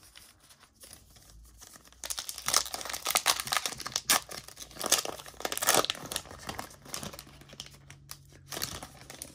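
Foil wrapper of a Panini NBA Hoops trading-card pack crinkling and tearing as it is ripped open by hand, starting about two seconds in and easing off near the end.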